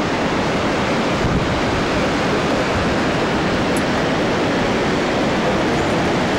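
Steady rushing noise of the Zambezi's white water far below, with wind on the microphone.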